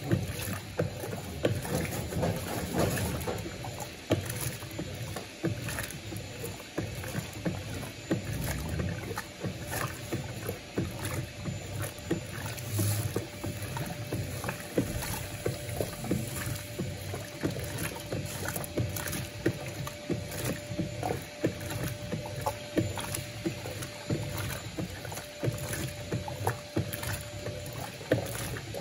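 Electrolux Turbo Compacta LTC07 top-loading washing machine in its initial agitation on the eco wash, churning a load of rugs: water sloshing with many irregular knocks, and a faint steady hum through the second half.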